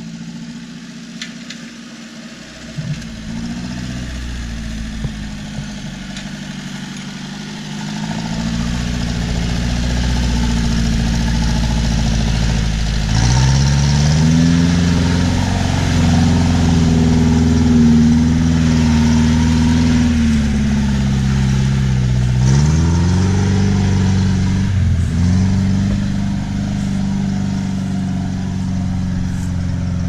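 UAZ Hunter off-roader's engine labouring under throttle as it pushes through a muddy rut past the listener and pulls away. It grows louder over the first several seconds and revs up about thirteen seconds in. Its pitch drops and climbs again twice near the end.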